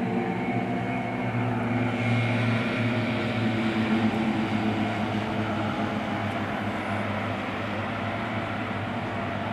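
Pilatus PC-7 turboprop trainers in formation aerobatics, their PT6A turbine engines and propellers making a steady drone whose pitch shifts slowly as they dive.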